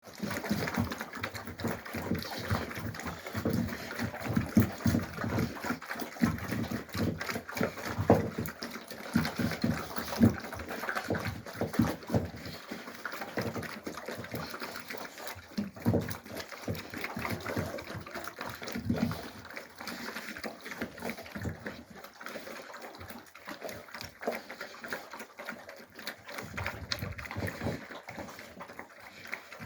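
Young Alabai (Central Asian Shepherd Dog) puppies moving about and making small noises: many short, irregular smacks and clicks, busier and louder in the first half and quieter in the second.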